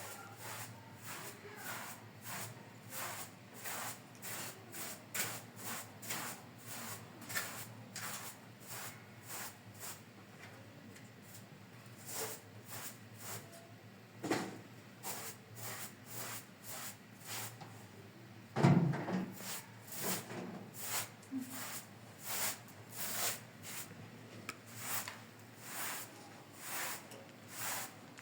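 Objects being handled and set down: a long run of light clicks and knocks, a few each second, with one louder thump about nineteen seconds in.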